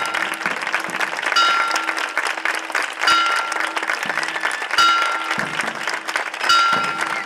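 Crowd applauding, with a ringing tone struck at a steady pace about every second and a half.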